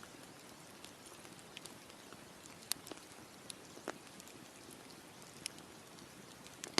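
Campfire crackling: a steady soft hiss with scattered sharp pops of burning wood, the loudest a little under three seconds in.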